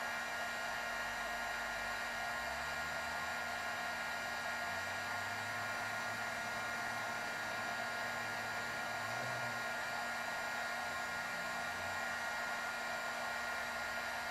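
Electric heat gun running steadily, a rush of blown air with a steady whine, then switched off right at the end and winding down.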